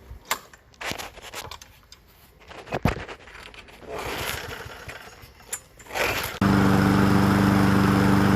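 Scattered scrapes and clicks of handling, then about six seconds in a walk-behind lawn mower's small overhead-valve engine comes in abruptly and runs steadily, with its crankcase badly overfilled with oil.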